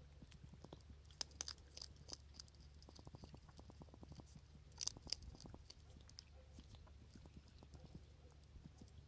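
Hedgehog chewing and crunching dry cat food kibble: a fast run of small, faint crunches, with a few louder crunches about a second and a half in and again about five seconds in.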